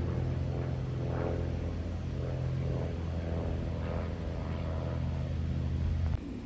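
Small propeller airplane's piston engine droning steadily as it flies overhead; the sound cuts off suddenly near the end.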